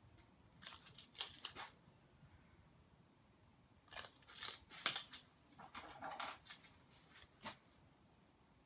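Short scratchy, crinkling hisses from hands working a spray-paint painting, a few about a second in and a denser run from about four to seven and a half seconds.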